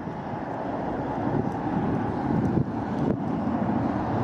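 Airbus A320-232's twin IAE V2527 turbofan engines at takeoff thrust just after liftoff: a steady jet noise that grows slowly louder as the airliner climbs away.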